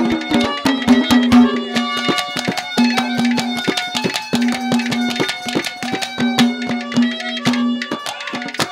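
Instrumental Haryanvi ragni folk music: a hand drum playing a quick, dense beat under long held notes from a melody instrument.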